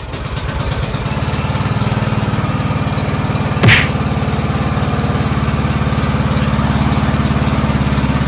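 Craftsman riding mower engine catching and settling into a steady run. Its carburetor's choke spring is broken, so the choke flap does not return on its own. A brief sharp sound cuts through about three and a half seconds in.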